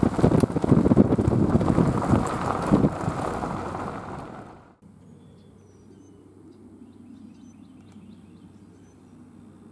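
Wind buffeting the microphone over the tyre and road noise of a car driving on a gravel road, with scattered gravel ticks; it fades out about four and a half seconds in. Then faint outdoor background with a few short, high bird chirps.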